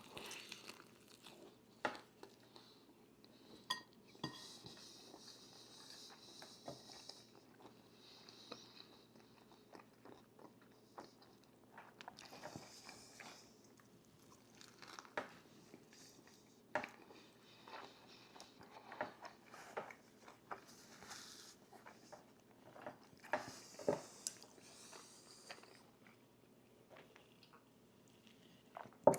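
Close-miked eating: chewing and crunching of food, with scattered sharp clicks and soft taps.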